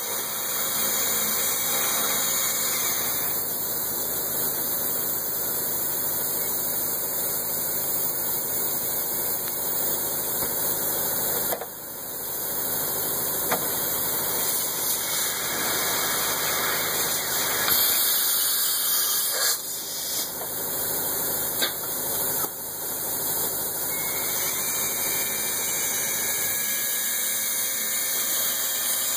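A machine tool running steadily with a noisy whir while parts are machined, dipping briefly a few times, with a few light ticks.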